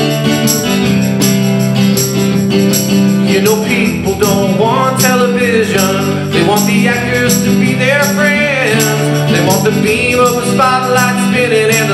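Live acoustic band music: strummed acoustic guitars and keyboard keep a steady chordal rhythm. From about three seconds in, a wavering, gliding lead melody comes in over them.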